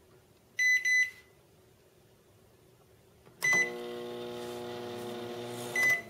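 Frigidaire microwave oven keypad beeping twice as buttons are pressed. A beep comes a few seconds in, and the oven runs with a steady hum for about two seconds. Another beep sounds and the hum stops: the oven powering and running again after repair of its dead control board.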